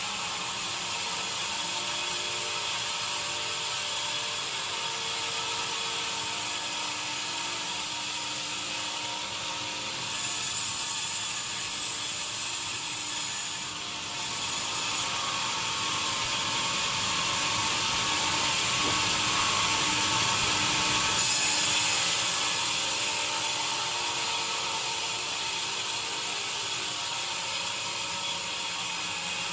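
Sawmill machinery running, a continuous mechanical rattle with a steady hiss over it. The sound changes abruptly several times.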